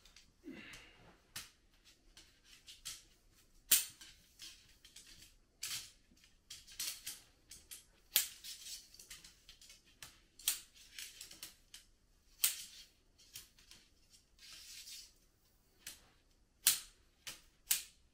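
Tent poles being handled and fed through a tent: irregular sharp clicks and knocks of the pole sections, with rustling of the tent fabric between them. The loudest clicks come about four seconds in, about eight seconds in and near the end.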